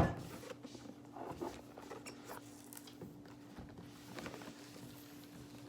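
Faint rustling and small taps of cardboard packaging being handled as a small box is worked open, over a steady low hum.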